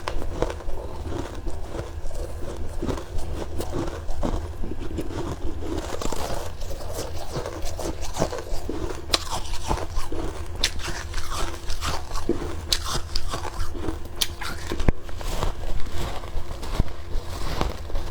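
Close-miked biting and chewing of freezer frost: a steady run of crisp crunches and crackles, one mouthful after another.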